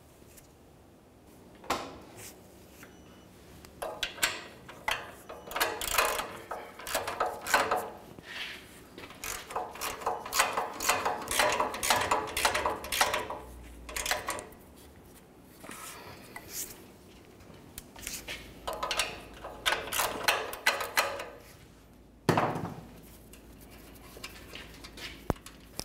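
Ratcheting wrench clicking in several long runs of rapid clicks as a nut is run down on an exhaust flange stud, with metal clinking from the tools and parts. A single heavier clunk comes near the end.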